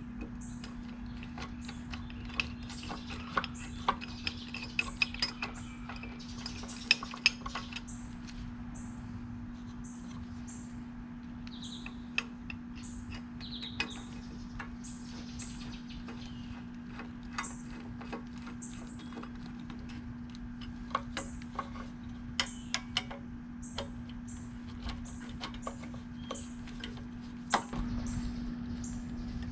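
Small metal clicks and ticks as a screwdriver drives the screws fastening a plate onto a generator's carburetor, with a knock near the end. A steady low hum and birds chirping run underneath.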